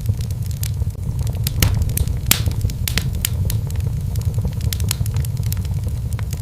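Wood fire burning in a fireplace: irregular sharp crackles and pops over a steady low rumble, with one louder pop a little over two seconds in.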